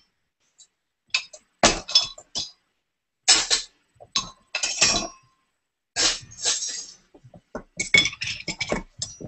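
Hard objects clinking and clattering as they are handled and set down: an irregular run of sharp clinks, some with a brief ringing tone.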